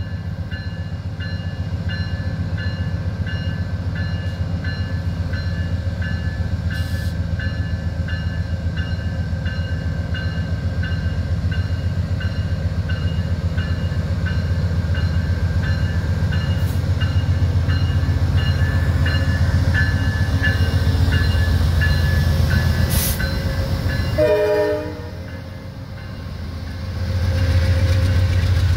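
GE Genesis P40DC diesel locomotive pulling a passenger train away from a station, its engine running under load and growing louder as it nears and passes. Over the engine a ringing tone repeats at an even pace, likely the locomotive's bell. The sound dips briefly near the end.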